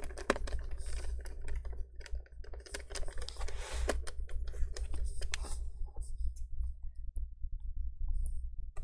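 Irregular small clicks, taps and scrapes of hands and a small screwdriver working on parts inside an open laptop, busiest a few seconds in and sparser near the end.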